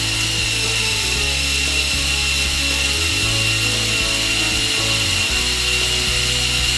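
Small electric motor and plastic gear train of a Mould King 13107 brick-built crane running at a steady, even-pitched whine as it drives the outrigger legs.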